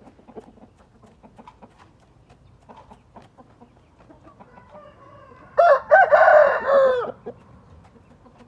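A gamefowl rooster crowing once: a single loud crow of about a second and a half, starting a little past the middle. Faint clucking comes before it.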